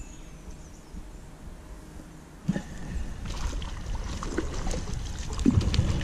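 Faint water and outdoor noise, then from about two and a half seconds in, a hooked small coosa bass splashing at the surface as it is reeled to the bank, with a run of sharp clicks and splashes growing louder toward the end.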